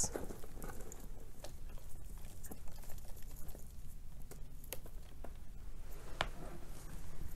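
Faint handling noises: soft rustling and scattered light ticks as succulent cuttings are pulled out of moss.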